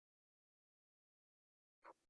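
Near silence, broken only by one very faint, brief sound near the end.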